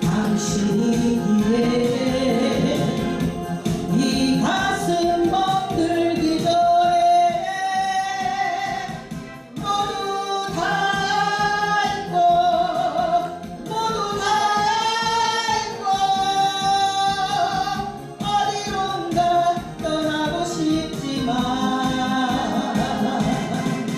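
Korean trot song performed live: a singer holding long, sliding sung notes over an amplified backing track with a steady beat.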